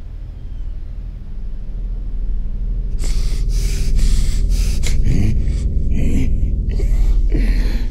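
A man's heavy, ragged gasping breaths, starting about three seconds in and coming in quick irregular strokes, over a low steady drone that slowly swells.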